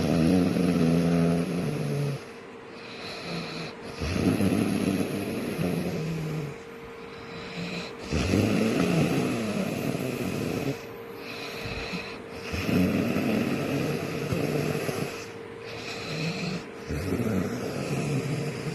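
Heavy snoring, five long rasping snores at a slow even pace, about one every four seconds, over a faint steady hum.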